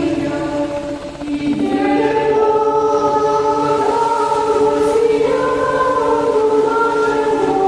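Background music: a choir singing slow, held chords.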